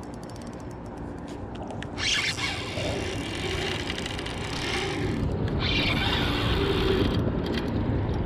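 Spinning-reel drag giving line to a big running fish: quick clicks, then buzzing in bursts about 2 seconds in and again from about 5.5 to 7 seconds, over a steady low rumble.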